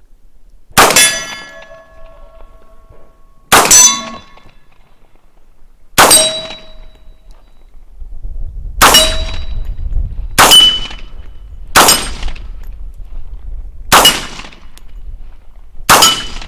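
Eight shots from a direct-blowback 10mm Auto AR-15 carbine, fired one at a time a second or three apart. Each shot is followed by the ringing clang of a hit steel target.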